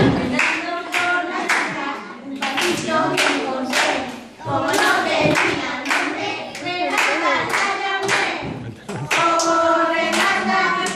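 A group of young children singing a song together in unison while clapping their hands in a steady rhythm to the beat.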